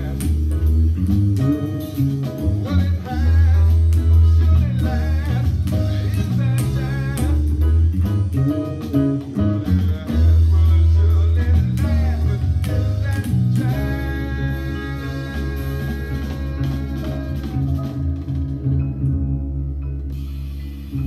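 Fretless electric bass played fingerstyle, a moving melodic line over backing music; about two-thirds of the way in it settles into long held notes that fade toward the end.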